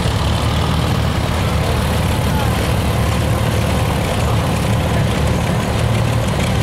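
Antique 1952 International Harvester Farmall tractor engine running steadily at low speed as it drives slowly past, with other antique tractor engines running behind it; a continuous low throb.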